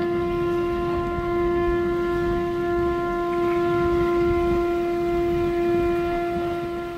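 A conch shell horn (pū) blown in one long, steady note, over a low rush of wind and water.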